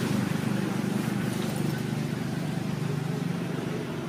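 A steady low engine hum that holds evenly throughout, fading slightly toward the end.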